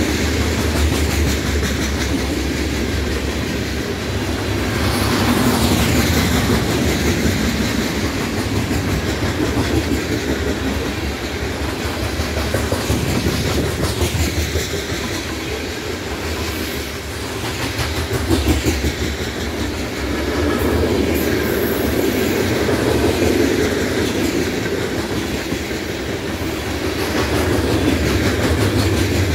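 Cars of a BNSF manifest freight train, covered hoppers, tank cars and boxcars, rolling past at track speed: a steady rumble of steel wheels on rail with a run of clicking over the rail joints, swelling and easing slightly as the cars go by.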